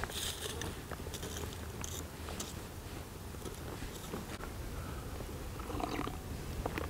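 Charred sticks of campfire charcoal crunching and scraping in the ashes as they are poked and lifted out with a stick, a few light clicks scattered through, over a steady low rumble.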